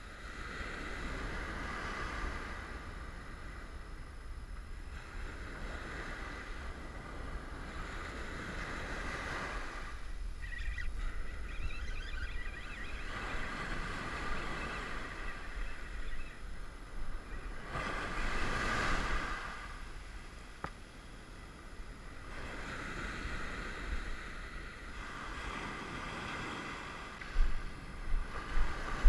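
Ocean surf washing up the beach, swelling and fading every few seconds, over a steady low rumble of wind on the microphone. A few low thumps near the end.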